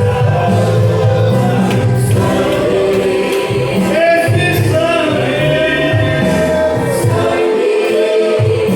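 Gospel worship music: a choir of voices singing over a steady instrumental accompaniment.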